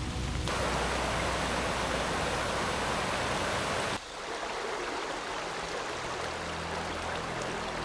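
Steady rushing water, a noisy hiss that changes abruptly about half a second in and again about four seconds in. Low steady tones join in the last two seconds.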